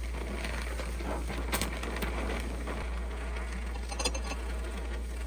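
Gas torch flame hissing steadily while it heats a Mauser bolt handle clamped in a vise. Two light clicks, about a second and a half in and again near four seconds.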